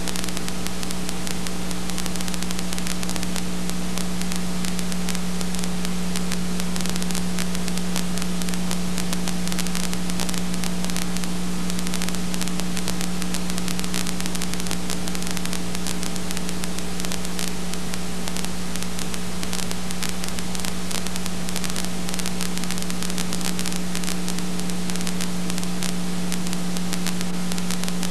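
Steady hiss with a constant electrical hum and no other sound: the noise floor of a transferred silent home movie that has no soundtrack of its own.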